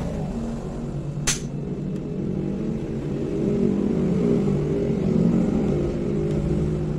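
A single sharp click about a second in, the snap of a plastic clip as the Acer Z1402 laptop's screen bezel is pried loose with a card. Under it runs a steady low engine-like rumble.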